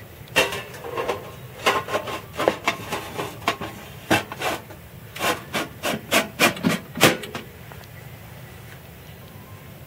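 A string of about a dozen irregular knocks and scrapes, like hard objects being handled, lasting about seven seconds before giving way to a steady background hiss.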